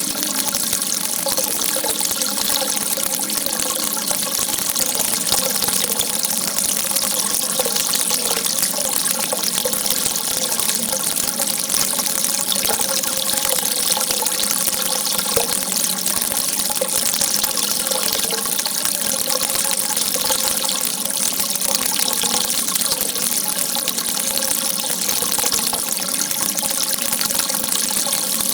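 Water gushing in a strong, steady stream: a continuous even rush that does not change.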